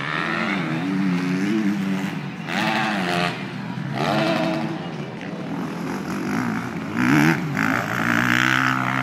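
Off-road motorcycle engines revving, their pitch rising and falling repeatedly as the throttle is worked, with a louder, higher rev about seven seconds in.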